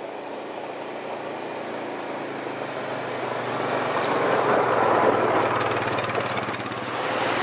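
Yamaha Grizzly 700 ATV's single-cylinder four-stroke engine running while riding, growing louder about halfway through.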